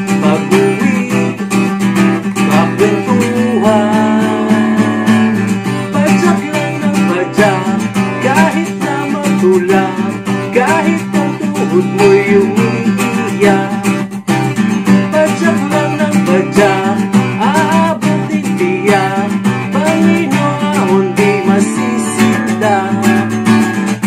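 Background song: acoustic guitar with a singing voice.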